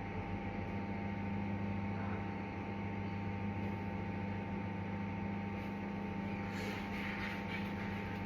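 Microwave oven running on high power, a steady electrical hum. About six and a half seconds in, light rustling and clattering join the hum.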